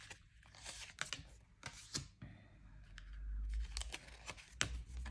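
Oracle cards being handled and slid one over another in the hand, with a few faint sharp clicks from the card edges and a soft low rumble around three seconds in.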